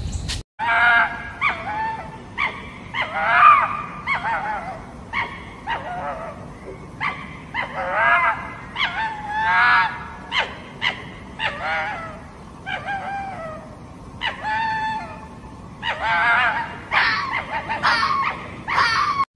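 Fox calling: a long irregular series of short, high, barking yelps, some with a wavering, screechy pitch.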